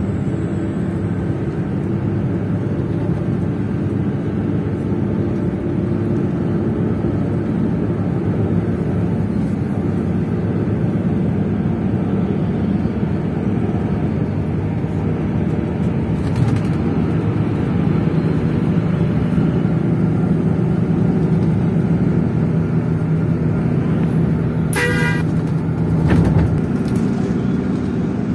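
Intercity bus engine and road noise droning steadily, heard from inside the cabin at highway speed. Near the end a horn sounds once, for about a second.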